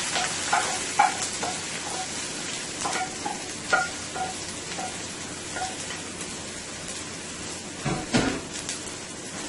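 Fresh chopped seasoning sizzling in hot oil in a pot, a steady hiss. A metal spoon clinks against the pot about a dozen times in the first six seconds, and there is a heavier knock about eight seconds in.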